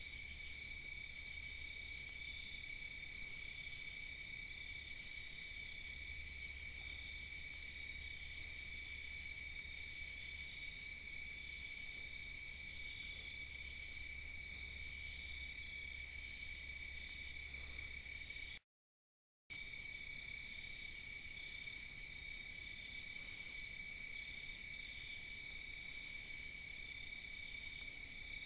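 Night-time chorus of crickets and other insects: a steady high trill with faster, regular pulsing calls above it. The sound cuts out completely for under a second about two-thirds of the way through.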